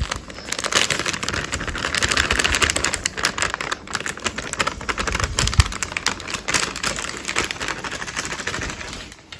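Clear plastic bag crinkling and rustling in the hands while dry brownie mix is shaken out of it into a stainless steel bowl, with lots of quick crackly clicks.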